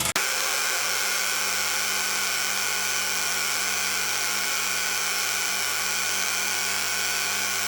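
Hay baler engine running at a steady speed, heard as an even, loud hiss over a steady low hum. There is a short click at the very start where the recording cuts in.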